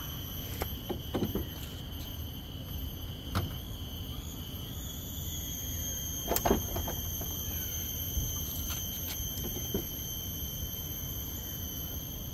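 Raised Volvo XC90 bonnet being pushed and handled on its new gas struts, giving a few soft knocks, the loudest about six and a half seconds in. Underneath runs a steady high-pitched insect drone and a low traffic rumble.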